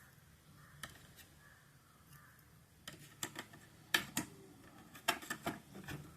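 Small sharp clicks and taps from a laptop's parts being handled during a RAM upgrade. There is one click near the start, then an irregular run of them from about three seconds in.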